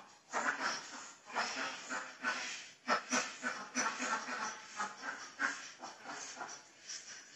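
A flock of domestic ducks quacking, many harsh calls overlapping in quick succession.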